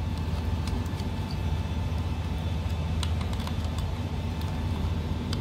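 Faint, irregular small clicks of a precision screwdriver turning a terminal screw and handling wire on a plastic break glass unit, over a steady low hum.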